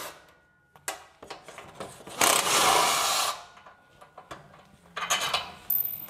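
Hand ratchet wrench clicking in quick runs as the bolts holding a fuel tank are undone, with a few knocks of tool on metal between. The loudest run comes about two seconds in and lasts about a second; a shorter one follows near the end.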